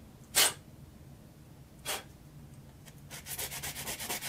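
Sandpaper rubbing on a soft pine knife scale by hand: two single scrapes early on, then quick back-and-forth sanding strokes, several a second, starting again near the end.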